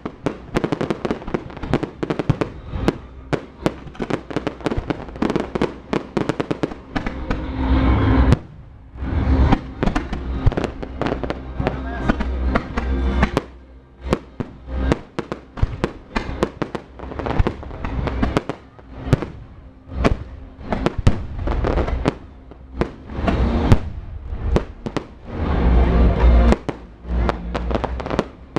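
Fireworks going off in rapid, irregular succession: many sharp cracks and bangs, with heavier booming stretches about eight seconds in and near the end.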